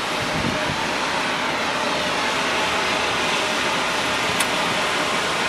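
Steady running noise of a Suzuki Swift's 1.2-litre inline-four idling, heard from beside the car, with one short click about four seconds in.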